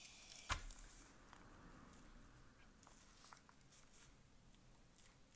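Faint scratching of a pen writing on a squared-paper notebook, with one sharp click about half a second in and a few small ticks.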